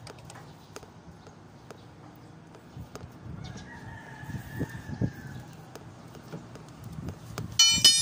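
Hand tools scraping and tapping on the steel steering knuckle and drag link end of an Isuzu Elf truck's front axle, with a rooster crowing in the background, one long crow about three and a half seconds in. A short, loud, high ring near the end.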